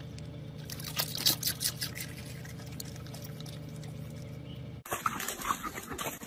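A dog licking with wet smacking clicks, thickest between about one and two seconds in, over the steady low hum of a car cabin. Just before five seconds in, the sound cuts abruptly to a noisier, crackling outdoor clip.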